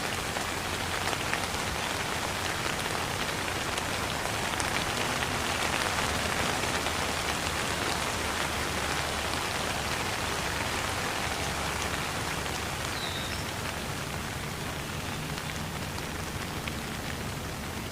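Steady rain falling: a dense, even hiss with the fine patter of individual drops, swelling a little toward the middle.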